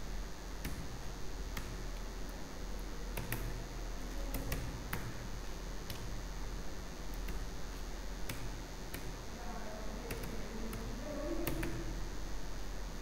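Computer keyboard keys clicking in slow, irregular single strokes as code is typed, over a steady faint background hiss.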